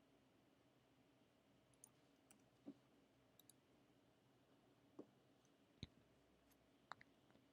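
Near silence: faint room hum with a handful of scattered, faint clicks from a computer keyboard and mouse in use.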